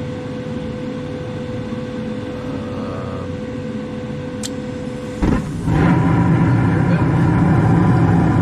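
Furnace running its start-up sequence after the igniter has heated: a steady fan hum with a constant whine, then a little past five seconds in the burners light with a sudden thump, followed by a louder, steady rumble of the burning furnace.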